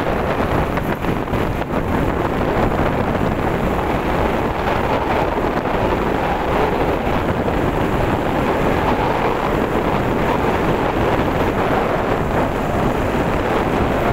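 Steady rush of wind on the microphone mixed with the engine and tyre noise of a two-wheeler riding at speed through a road tunnel.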